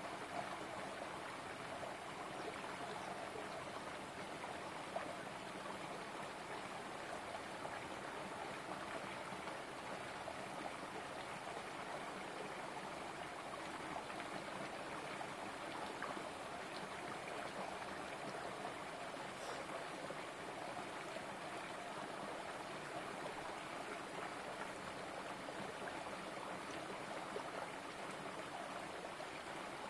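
A small rocky stream running steadily over and between stones, a continuous trickling babble.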